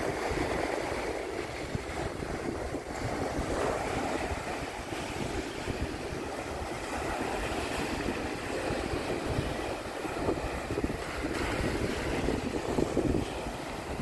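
Sea waves washing onto a beach in a steady wash, with wind buffeting the microphone.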